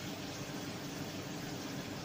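Thick tomato-based sweet-and-sour sauce simmering and bubbling in a large aluminium wok, a steady bubbling hiss over the steady hum of the electric glass-top cooker.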